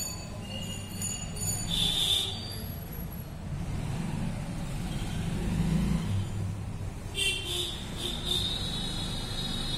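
Steady low background rumble, of the kind road traffic makes. A short high tone comes about two seconds in, and a longer high warbling tone runs from about seven seconds in.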